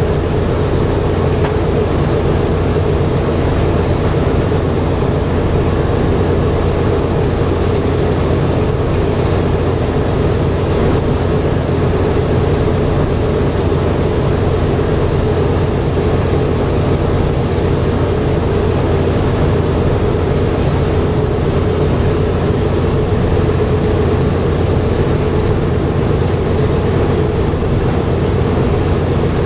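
The four Wright R-1820 Cyclone nine-cylinder radial engines of a Boeing B-17G Flying Fortress running steadily. It is a loud, even drone heard from inside the fuselage.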